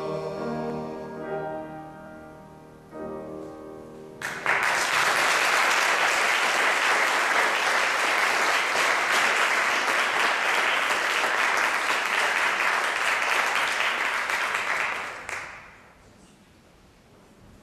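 Two men's voices hold the last notes of a song. About four seconds in, an audience breaks into loud applause that lasts about eleven seconds and stops fairly suddenly near the end.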